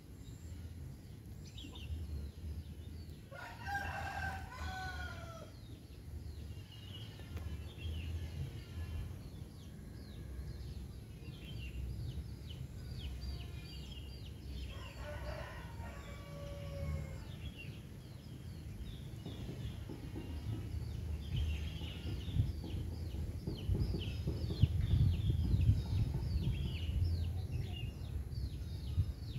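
A rooster crowing twice, about four and fifteen seconds in, each a long call that drops in pitch at the end. Short high chirps, mostly in the second half, and a steady low rumble run underneath.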